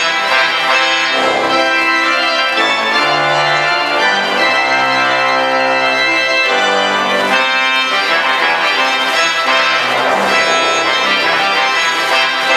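Pipe organ playing loud held chords that change every second or so, over sustained low pedal notes.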